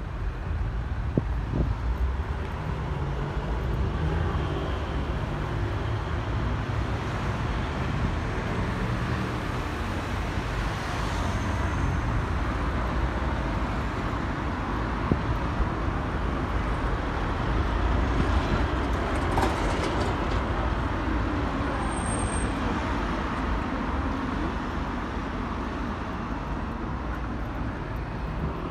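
City street ambience: steady road-traffic noise with a low rumble.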